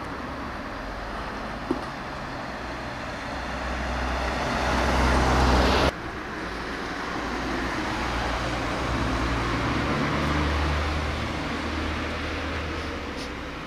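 Road traffic: a motor vehicle passing, its engine and tyre noise swelling until it cuts off abruptly about six seconds in, then another vehicle passing, louder around ten seconds and fading.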